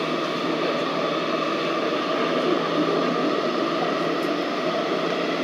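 Interior noise of a Busan Metro Line 2 subway car running between stations: a steady rushing rumble with a faint steady hum underneath.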